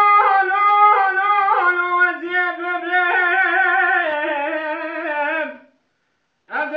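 A man singing unaccompanied in the Kurdish dengbêj style: long held, high notes that step in pitch and then waver in ornamented runs. The voice breaks off about five and a half seconds in and comes back in near the end.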